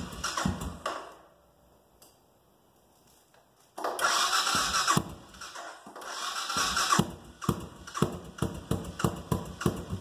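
Suzuki S40's single-cylinder engine being started: it thumps in quick rhythmic strokes, stops about a second in, is silent for about two and a half seconds, then catches again with a loud burst and keeps thumping unevenly.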